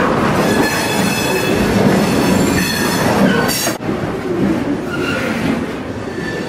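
HO scale model freight train rolling along the track, with high-pitched wheel squeal near the start and again about three and a half seconds in.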